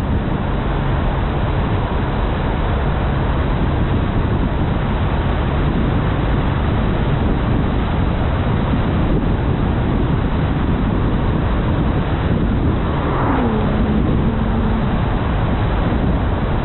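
Steady road and wind noise of a car driving. About 13 seconds in, a tone falls in pitch and holds steady for a couple of seconds.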